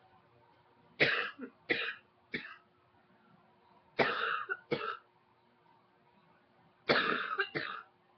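A woman coughing in three short bouts: three coughs, then two, then two, with pauses of a second or so between bouts.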